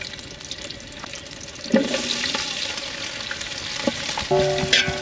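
Food frying in hot oil in a cooking pot, a steady sizzle that grows louder about two seconds in.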